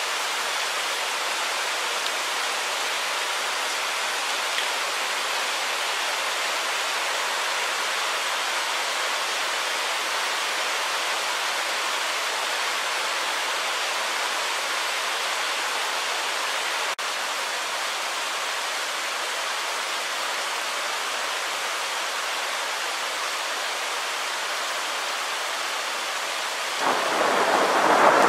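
Steady hiss of a hailstorm's hail and rain coming down. Near the end a peal of thunder breaks in and is louder than the downpour.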